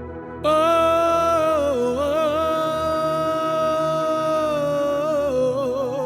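Worship music: a single voice comes in about half a second in and holds long wordless notes, dipping briefly and wavering near the end, over a steady low accompaniment.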